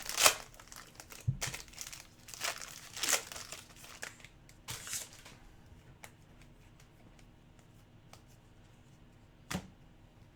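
A trading-card pack wrapper being crinkled and torn open, with a few loud rustles in the first five seconds, then quieter handling of the cards and a single sharp click near the end.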